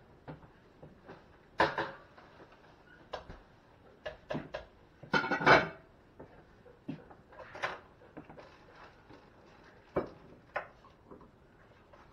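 Kitchen clatter: scattered knocks and clinks of dishes, pots and utensils, with a louder rattle about half a second long around five seconds in.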